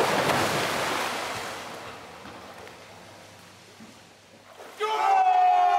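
A big splash as a person plunges into a swimming pool: a sudden loud crash of water whose spray and slosh die away over about two seconds. Near the end a man starts a long, held shout.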